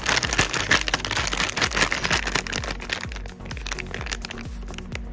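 Background music with plastic packaging crinkling and crackling as it is opened, busiest in the first three seconds.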